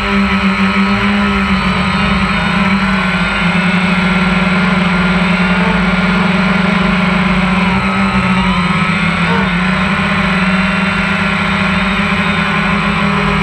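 DJI Phantom 1 quadcopter's motors and propellers running, a loud steady buzz heard from the GoPro mounted on the drone itself. The pitch wavers slightly as the drone adjusts its flight, dipping a little about nine seconds in.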